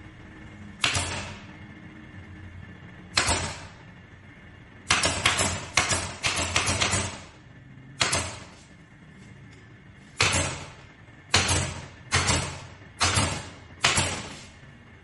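About fourteen sharp knocks on a wooden sofa frame, each ringing briefly. Some come singly and others in a quick run about five to seven seconds in.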